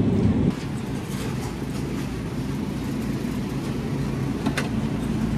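Steady low hum of a supermarket's refrigerated display cases and ventilation, louder for the first half second, with a faint click about four and a half seconds in.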